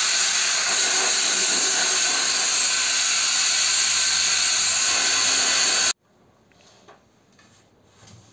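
Compressed-air gravity-feed paint spray gun hissing steadily while spraying paint. About six seconds in the hiss cuts off abruptly, leaving only faint small knocks.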